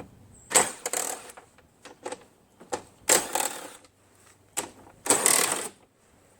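Impact driver hammering in three short bursts, about two seconds apart, loosening the 3/8-inch bolts on a snowblower's engine cover, with light clicks between the bursts.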